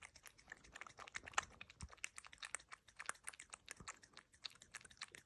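A cat lapping and licking soft white food from a saucer: a faint, rapid run of wet tongue clicks, several a second.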